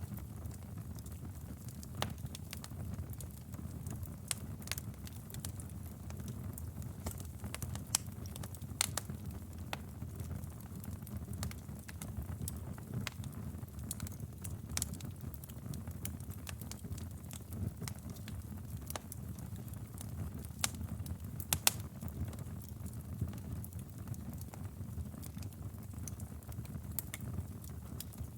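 Wood fire in a fireplace burning with a low steady rumble and frequent irregular crackles and pops, a few louder snaps among them.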